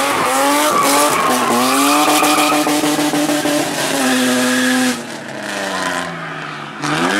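Rally car engine under hard acceleration, its pitch climbing in steps as it shifts up through the gears. About five seconds in it lifts off and the engine note falls away more quietly, then it is back on the throttle with a sharp rise in pitch near the end.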